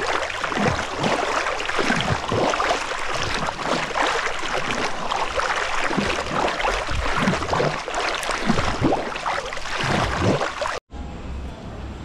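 Sea water splashing and churning as legs kick in shallow water, a continuous run of irregular splashes. It cuts off abruptly near the end to a much quieter low background hum.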